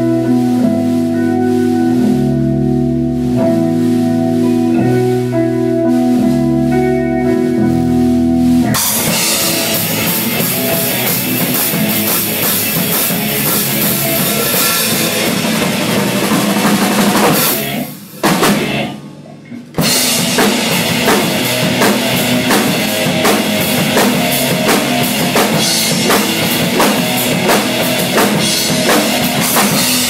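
Drum kit played in a rock song with guitar and bass. About nine seconds in it breaks into a loud full-band section with cymbals, the music drops out for a moment near the middle, then drums and band come straight back in.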